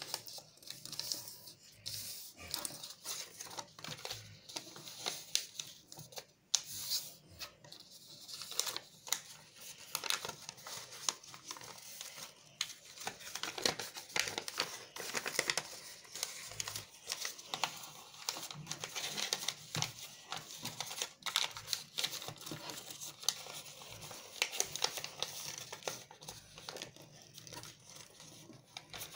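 A sheet of lined notebook paper being folded and creased by hand: irregular rustling and crinkling with many sharp crackles as the folds are pressed down.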